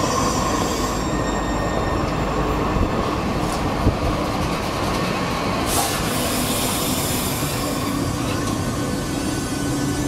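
Long multi-car light-rail tram rolling past at close range, a steady rumble of steel wheels on street track, with one short knock about four seconds in.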